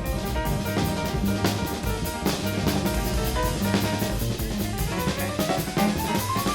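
Acoustic jazz quartet playing fast: drum kit with busy cymbal and drum strokes over a stepping double bass line, with piano and horn notes above and a rising run of notes near the end.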